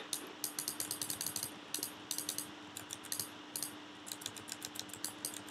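Quick, irregular clicks of keys being typed on a computer keyboard, over a faint steady hum.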